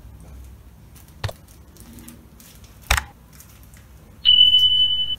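Two sharp clicks about a second and a half apart, then a loud steady high beep held for about a second near the end. These are the sound effects of an animated subscribe-button overlay: mouse clicks on the button and the bell, then a beep.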